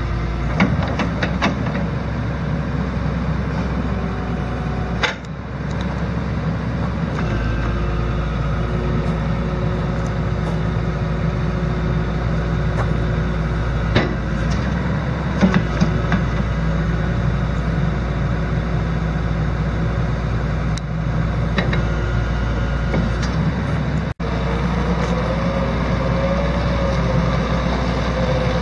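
Diesel engine of a 2004 Hyundai Robex 200W-7 wheeled excavator running steadily, with a few sharp clunks and knocks here and there.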